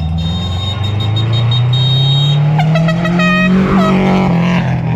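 Rally car engine accelerating hard, its pitch climbing steadily for about four seconds and then levelling off. A short, higher pitched tone sounds briefly just past the middle.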